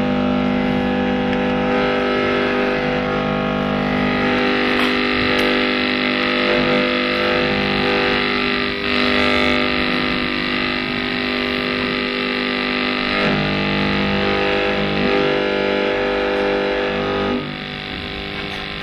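Amplified live experimental music: a dense, distorted drone of many steady held tones. It dips slightly quieter near the end.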